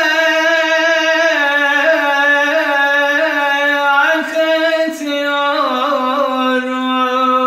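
A man singing unaccompanied in a high, strained voice: a slow Turkish martyr's lament, one line drawn out in ornamented turns and ending on a long held, wavering note.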